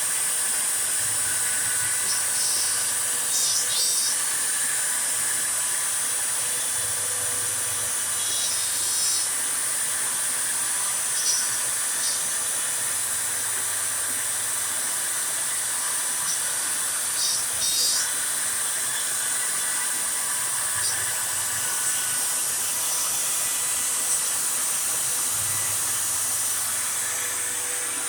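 CNC router spindle and shop vacuum running together in a steady, loud hiss while the bit cuts a jack-o'-lantern face into a wooden board, with brief higher scraping bursts every few seconds and a low hum from the machine's axis motors coming and going.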